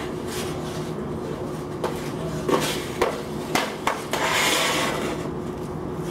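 Ice skate blades on a thin sheet of homemade ice: several sharp clacks about two to four seconds in, then a longer scrape.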